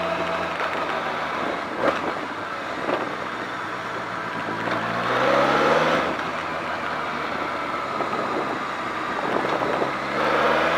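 BMW K1200R Sport's inline-four engine running at low speed, rising in pitch as the bike accelerates about four seconds in and again near the end, over steady wind and road noise. A short knock about two seconds in.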